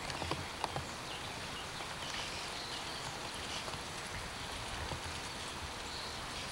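Steady outdoor background noise with a few faint, short high chirps scattered through it and a couple of small clicks within the first second.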